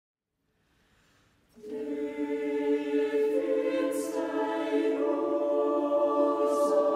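Choir singing a slow Norwegian hymn setting in sustained chords, coming in about a second and a half in after near silence; the chord shifts a couple of times, and soft hissing 's' consonants come through twice.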